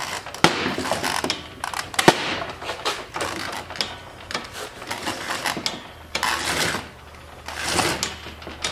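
Clatter from a tracked snowblower drive unit being handled, its rubber tracks and steel frame shifting on a metal workbench: scattered clicks and knocks, with a sharp knock about half a second in and another about two seconds in.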